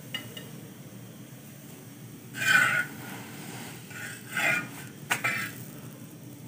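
Metal spatula scraping against an iron tawa as a paratha is pressed on it: two short scrapes, about two and a half and four and a half seconds in, then a sharp tap just after five seconds.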